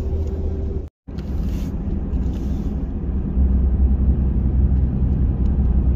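Road and engine rumble heard from inside a moving vehicle's cabin. It cuts out briefly about a second in and gets louder a couple of seconds later.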